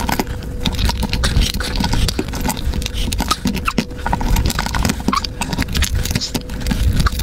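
Shell of a cooked king crab being cut with kitchen scissors and its legs pulled off by hand: an irregular run of close crackling clicks and scraping from the spiny shell.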